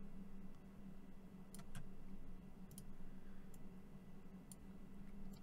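About six faint, sparse clicks from a computer mouse and keyboard, over a low steady electrical hum.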